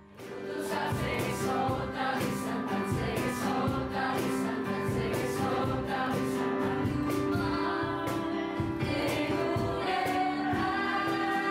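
A group of men and women singing a Christian worship song together over a steady beat.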